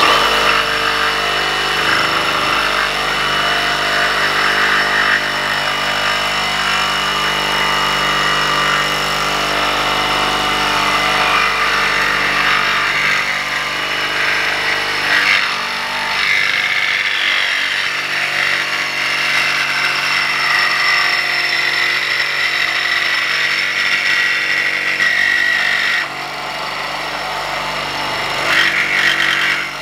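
Ridgid 18-volt cordless one-handed reciprocating saw cutting through a thick-walled steel fence-post pipe, about an eighth of an inch thick. The motor runs under load with the blade sawing steadily through the metal. The sound drops a little quieter late on, then rises again near the end.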